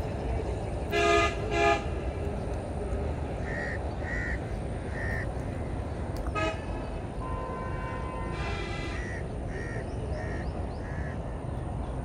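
Birds calling: two loud, harsh calls about a second in, then a run of short, high chirps repeating over a steady low outdoor rumble.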